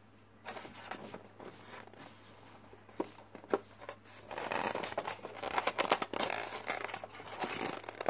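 Handling noise of tweezers and hands against a styrofoam packaging insert: scattered scraping and rustling, with a couple of sharp clicks about three seconds in, getting busier from about halfway.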